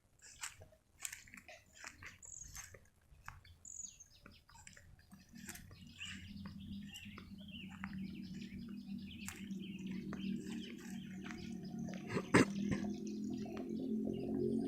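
Small field birds (pipits, the rice-raiding munias) chirping in short, quick calls. A low steady hum builds in from about five seconds in, and there is one sharp click near the end.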